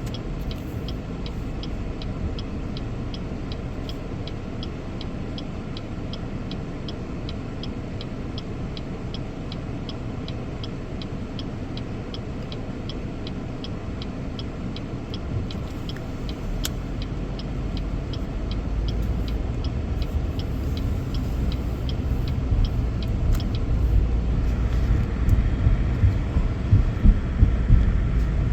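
Car interior while driving: steady road and engine rumble, with a turn-signal indicator ticking about twice a second until it stops near the end. The rumble grows louder over the last several seconds as the car picks up speed.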